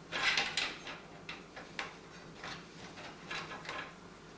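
Light clicks and rustles of cables being pushed and rearranged inside a computer case, busiest in the first second, then a few scattered softer clicks.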